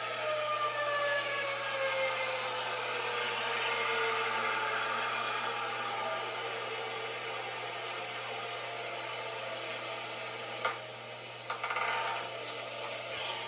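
Dual-tone outdoor tornado warning siren winding down, its pitch falling steadily over the first few seconds until it fades out. An even rushing noise runs throughout, and a few sharp knocks come near the end.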